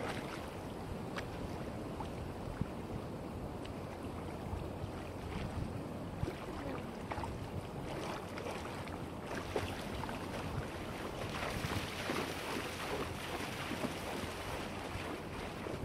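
Moving water rushing and splashing, busier and brighter from a little past halfway, with wind buffeting the microphone.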